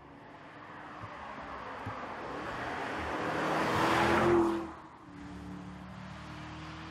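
Audi SQ8's 4.0-litre twin-turbo V8 approaching and passing close by, its engine note and tyre noise growing louder to a peak about four seconds in. The sound then drops suddenly, leaving a steadier, more distant engine note.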